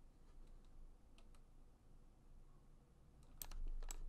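Soft clicks from a computer mouse and keyboard: a few faint ones, then a quick cluster of sharper clicks near the end.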